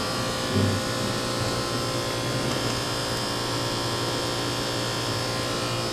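Steady machinery hum: a buzzing drone made of several held tones, with a short low bump about half a second in.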